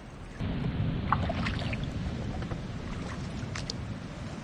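Water sloshing steadily around feet wading through shallow seawater over rocks, starting about half a second in, with a few light clicks of stones or gear.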